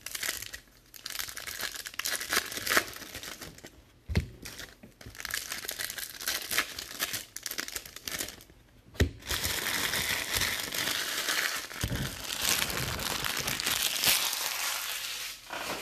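Foil trading-card pack wrappers being torn open and crinkled as they are handled, with a couple of sharp knocks. The crinkling is densest in the second half.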